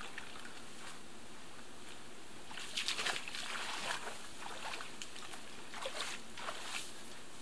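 Water sloshing and dripping with short scrapes as a long wet plank from an old wooden dock is pulled up out of a lake. The noises come in a cluster about three seconds in, then more sparsely, over a steady faint hiss.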